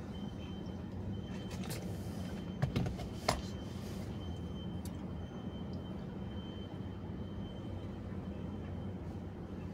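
Steady low rumble inside a car's cabin, with two short clicks about three seconds in and a faint thin high tone coming and going.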